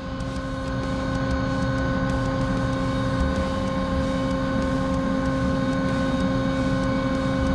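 CNC machining centre running between drilling passes: a steady machine hum made of several even tones over a low, uneven rumble, as the spindle turns with the solid carbide drill raised and moves to the next hole in the steel plate.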